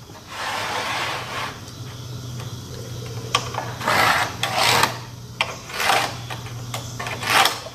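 Pencil scratching along the edge of a steel framing square and the square scraping as it is slid across a pine 2x12 stair stringer, in several short strokes, over a low steady hum.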